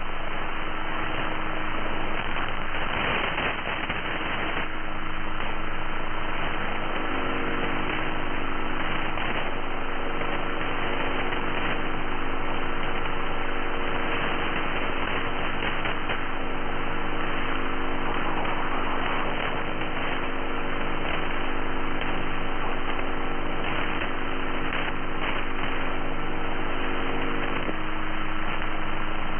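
Shortwave radio static hissing through an upper-sideband receiver, with a steady whistle from a carrier in the passband. About seven seconds in, a cluster of steady low tones from an interfering signal joins the hiss, and it stops near the end.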